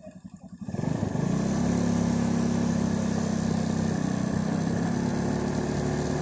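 The engine of the vehicle carrying the camera picks up from a slow pulsing pace about a second in, then runs steadily, with wind rushing over the microphone.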